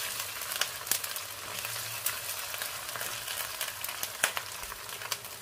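Diced onions and ginger-garlic paste sizzling in hot oil in a wok, with frequent sharp crackles, while being stirred with a spatula. The onions are frying until they brown.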